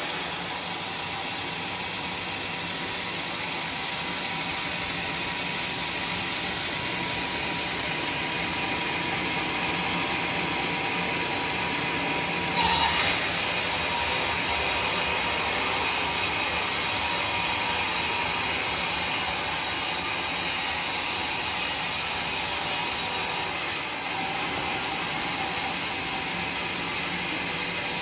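A homemade band sawmill's new band saw blade ripping lengthwise through a teak log, a steady rasping sound over the running machine. It steps abruptly louder about halfway through and a little quieter toward the end.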